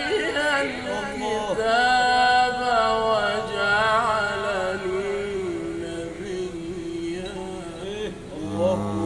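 A man reciting the Quran in the melodic, ornamented tilawah style, drawing out one long phrase in held, wavering notes. The phrase fades away about eight seconds in.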